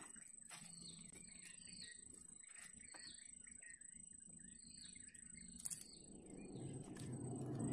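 Small birds chirping repeatedly in short calls over a steady high-pitched whine. About six seconds in, rustling and swishing through waterside plants builds and gets louder.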